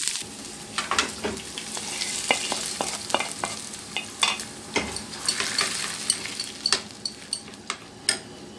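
Hot oil tempering of mustard seeds, moong dal, green chillies and curry leaves sizzling, with many short sharp pops and clicks. A spoon then stirs it into semolina-and-curd idli batter in a glass bowl, and the sizzle fades away.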